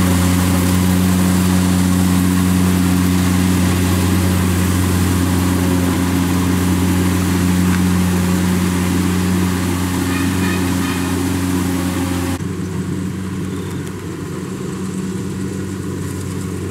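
Kubota rice combine harvester's engine running at a steady speed, with a broad hiss over it. About three-quarters of the way through the hiss drops away abruptly while the engine's low hum carries on.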